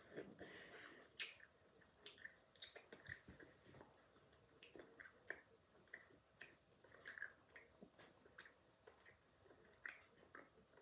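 Faint, irregular mouth clicks and crunches of a child chewing a snack close to the microphone.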